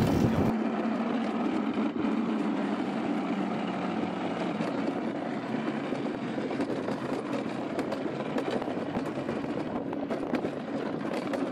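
Summer toboggan sled running fast down a stainless-steel trough track, heard from on board: a steady rattling rumble with frequent small clicks and knocks. It starts about half a second in, when the music at the very start cuts off.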